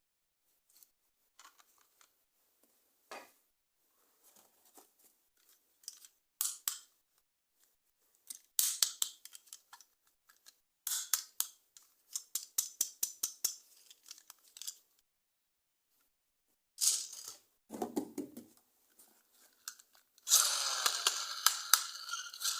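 Toy packaging being handled and opened close to the microphone: scattered clicks and quick runs of crisp snipping and crackling, one duller thud, then a continuous crackle near the end.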